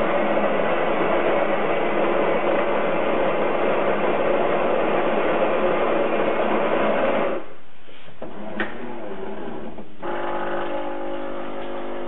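JURA ENA7 automatic coffee machine's built-in grinder grinding beans for a fresh cup, a loud steady grinding that stops abruptly about seven seconds in. A single click follows, then a quieter steady hum of several even tones starts about ten seconds in.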